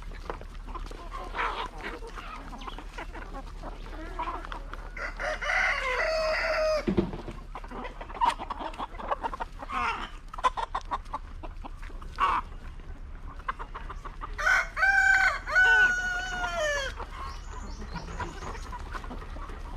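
Chickens: a rooster crows twice, about five seconds in and again about fourteen seconds in, each crow ending on a falling note, over scattered clucking from hens.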